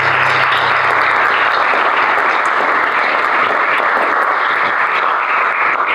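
Audience applauding, a dense, steady clapping, while the last held chord of music dies away in the first second or so.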